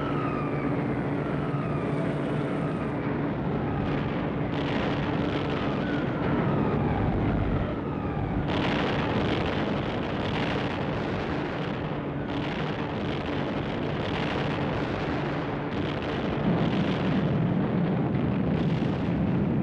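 Heavy bombers' engines droning, with several falling-bomb whistles gliding down in pitch over the first few seconds. From about eight seconds in, a dense, continuous barrage of bomb explosions, as in carpet bombing.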